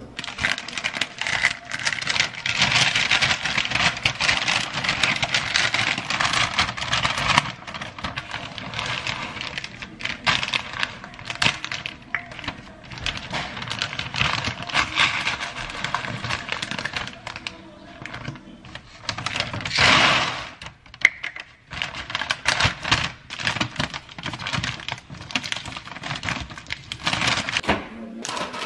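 Dry popcorn kernels rattling and clicking as they are scooped from a crinkling plastic bag and poured into a paper bag, with paper rustling as the bag is handled and folded.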